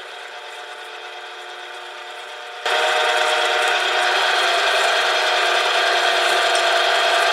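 Electric stand mixer running steadily, its flat beater working softened butter and brown sugar in a stainless steel bowl. A little under three seconds in, it is switched up to a higher speed and runs much louder.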